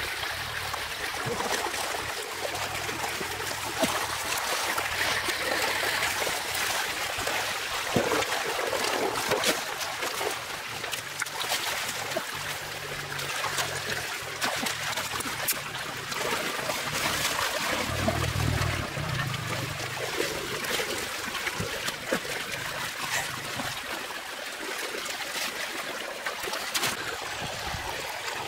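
Water running and trickling steadily out of a drain, with a few brief splashes.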